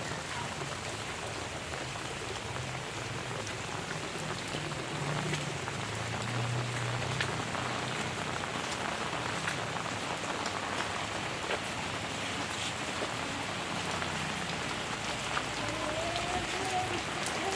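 Heavy rain falling steadily: an even hiss of drops on surfaces, with scattered sharper drop hits.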